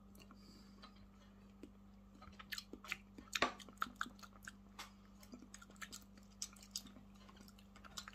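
A person chewing a mouthful of dragon fruit close to the microphone: soft wet smacks and clicks, thickest from about two to five seconds in.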